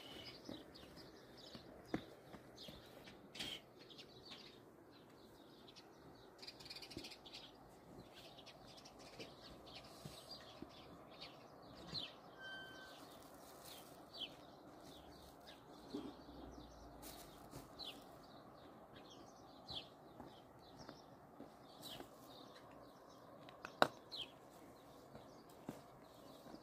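Small birds chirping on and off, short high calls scattered through a quiet outdoor background. A few faint clicks are heard, and one sharp click about 24 seconds in.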